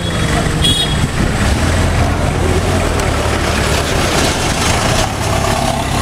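Street traffic, with a heavy vehicle's engine running close by in a steady low hum. A brief high-pitched tone sounds just under a second in.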